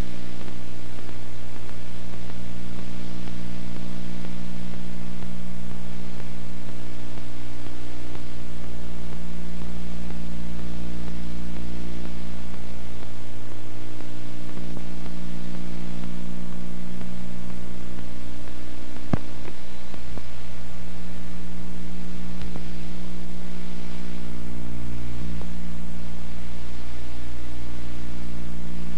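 Steady electrical hum with hiss on an old home-video tape's sound track, with a single click about two-thirds of the way through.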